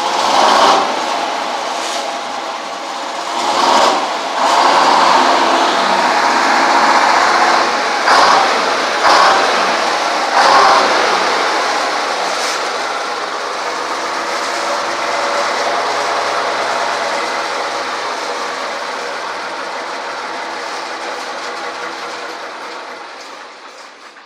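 GM Detroit Diesel two-stroke inline-six with blower, just started, running loud with several brief throttle surges in the first ten seconds or so, then settling to a steady run that grows fainter near the end.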